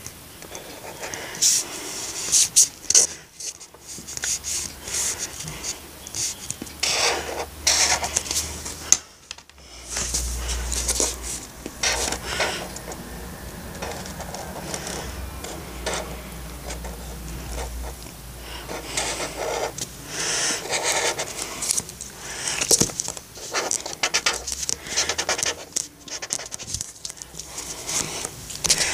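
A drawing tool scratching and rubbing on paper in short, irregular strokes, with pauses between bursts of drawing.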